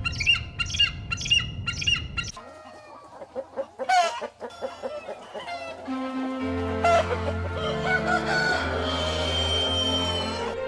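Chicken calls: rapid, evenly repeated high calls for about two seconds, then clucking and crowing. Steady background music runs under the second half.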